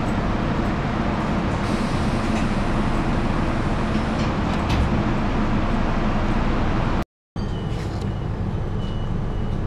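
Steady rumble and hum inside an electric suburban train carriage. The sound cuts out completely for a moment about seven seconds in, then the same steady carriage noise resumes.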